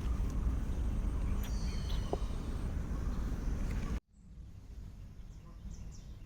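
Outdoor background noise: a steady low rumble with a few faint high chirps. About four seconds in, the sound cuts off abruptly and comes back much quieter, with more high chirps.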